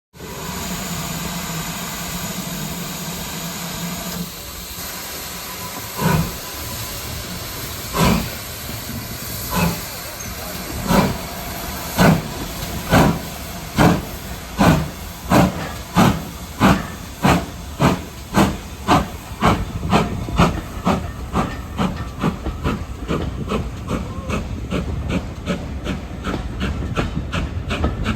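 Steam locomotive, likely GWR Hall-class 4930 Hagley Hall, starting away. First a steady hiss of steam with a low hum, then exhaust chuffs that begin about two seconds apart and quicken steadily as the engine gathers speed.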